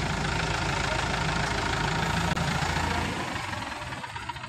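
ACE mobile crane's diesel engine idling steadily, growing fainter over the last second or so.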